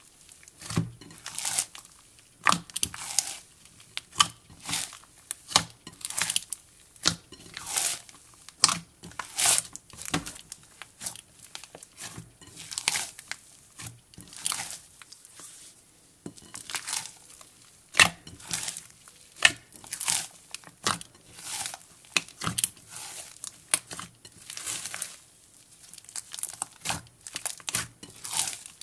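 Hands kneading, stretching and folding a mix of cloud and jelly slime: irregular crackling, tearing squishes, one or two every second.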